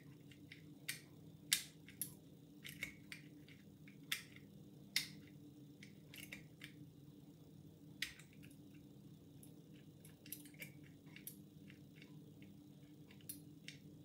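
Faint, irregular metallic clicks and ticks from a home-made lever pick and a bent-nail tension tool working the levers inside a Yale five-lever mortice sash lock held in the hand.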